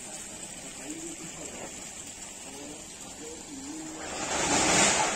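Water pouring steadily from inlet pipes and splashing into a koi pond. A louder rush of noise swells near the end.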